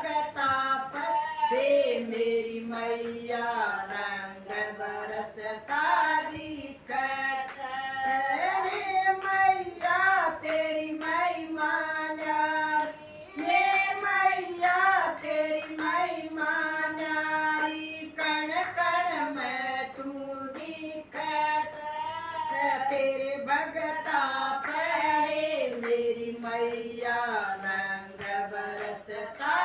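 Women's voices singing a Hindi devotional bhajan together with no instruments, the sustained notes sliding in pitch, while hand claps keep the beat.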